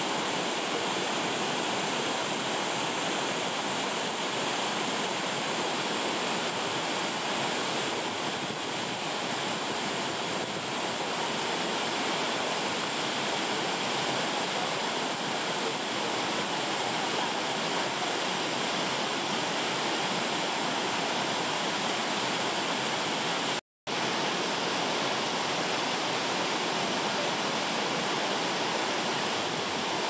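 Waterfall of over 30 m plunging down a rock wall: a constant, even rush of falling water. The sound cuts out completely for a fraction of a second about three-quarters of the way through, then returns unchanged.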